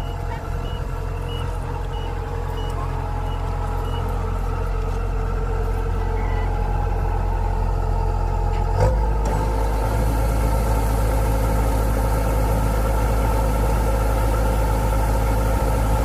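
Kubota DC-105X combine harvester's diesel engine running steadily, with a series of short beeps in the first few seconds. About nine seconds in a clunk sounds, the engine note drops, and a steady hiss joins it as the unloading auger delivers rice into the sacks.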